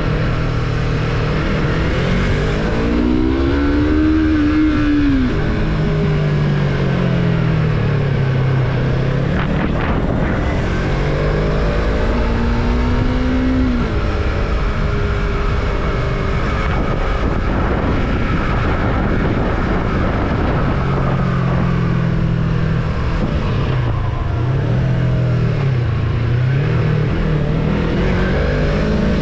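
Yamaha MT-03 motorcycle engine under way, revs climbing and falling back twice in the first half, then running lower with repeated small rises and drops, over a steady rushing noise.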